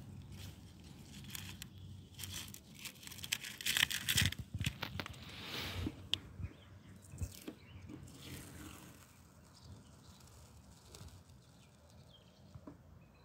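Masking tape being peeled off a freshly spray-painted car body: a crackly tearing that comes in rushes, loudest a few seconds in, then thinning to scattered small crackles.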